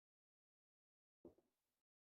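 Near silence, broken once about a second in by a brief faint soft sound that fades within half a second.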